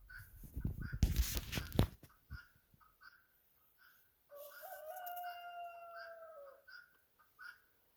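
A rooster crowing once, a single drawn-out crow of about two seconds that falls in pitch at the end, over a steady run of short bird chirps. A loud rustling noise comes briefly near the start.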